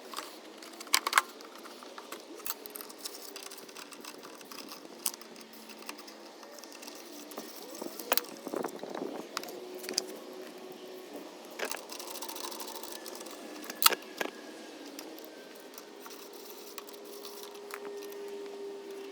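Scattered light clicks and metallic clinks of hand tools and small engine parts being handled while a lawn mower carburetor is taken off. A few sharper knocks stand out about a second in and around eight, twelve and fourteen seconds in.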